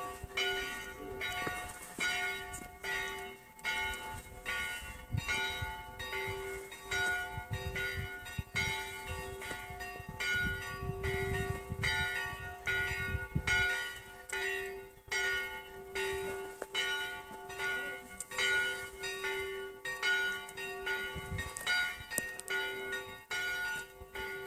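Church bell ringing, struck over and over in a steady, quick rhythm, each stroke leaving a sustained hum.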